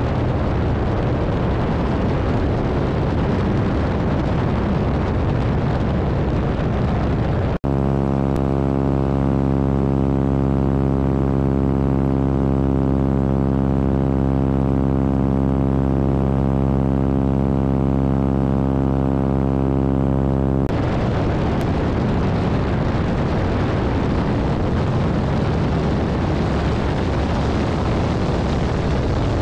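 Radial engine of a biplane in flight, running at a steady cruise setting under heavy wind rush on the microphone. About seven and a half seconds in the sound cuts abruptly to a clean, steady engine drone with little wind. Near twenty-one seconds it cuts back to the rushing wind and engine.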